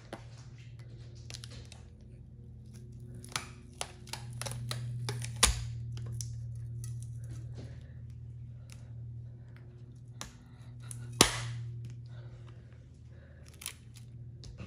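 Battery management circuit board being pried up off the double-sided tape that holds it to a battery pack's cells: scattered clicks and taps, with two sharp snaps about five and eleven seconds in. A steady low hum runs underneath.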